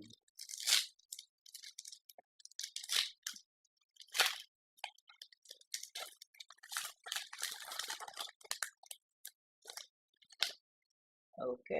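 Plastic booster pack wrapper crinkling in the hands as it is torn open, in irregular crackles with a longer stretch of crinkling about seven seconds in.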